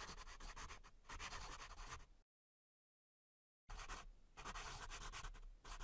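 Faint scratching of a pen writing on paper: about two seconds of scratchy strokes, a pause of about a second and a half, then writing again for the last two seconds.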